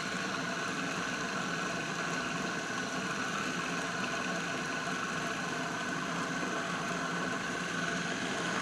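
Food processor motor running steadily at a slow-to-medium speed, an even hum with a faint whine, as it mixes a ground squid and pork-fat paste while cornstarch water is added.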